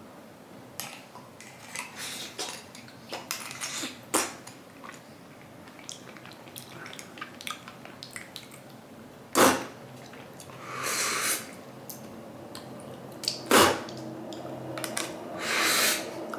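Dishes and cutlery clinking and scraping in a run of small clicks, with two louder sharp knocks about nine and thirteen seconds in and two short hissing sounds after them.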